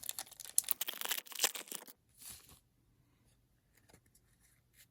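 Foil trading-card booster pack being torn open, with a rapid crackling tear for about two seconds and a brief rustle just after.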